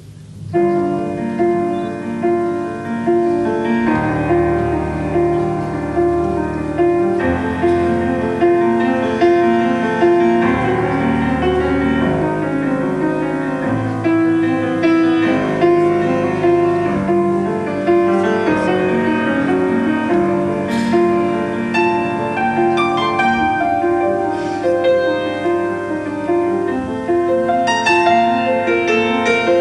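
Grand piano played solo: a continuous, loud flow of chords and runs that begins about half a second in, with deep bass notes held from about four to twelve seconds in.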